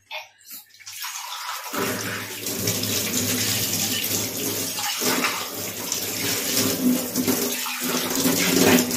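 Kitchen tap turned on and running into a stainless-steel sink, starting about a second in, with water splashing over a steel tumbler as it is rinsed and held under the stream. The rush is steady with a couple of brief dips.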